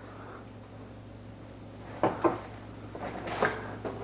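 Jichi-wood rack pieces knocking lightly as they are handled and set down: two short knocks close together about halfway through and a softer one a little later, over a steady low hum.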